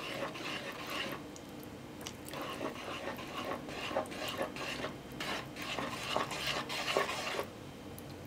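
Metal spoon stirring and scraping through wet flour in a mixing bowl: irregular light scrapes and clinks, pausing briefly about a second in and near the end.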